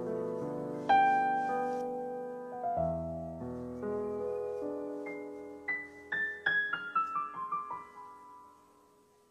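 Background piano music: struck notes ringing out and dying away, then a falling run of single notes from about six seconds in that fades almost to nothing near the end.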